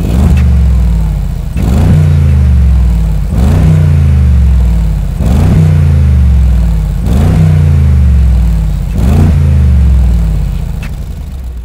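Mercedes-Benz G500's M177 4.0-litre twin-turbo V8 free-revving about six times, roughly one blip every two seconds, each rev falling back before the next, through a Stone Exhaust Eddy catalytic downpipe with the stock cat-back exhaust in Sport mode. The sound dies away toward idle near the end.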